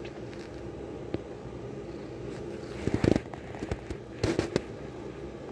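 Kitten licking and rubbing against a cotton shirt close to the microphone: two short bursts of crackling and rustling, about three and four seconds in.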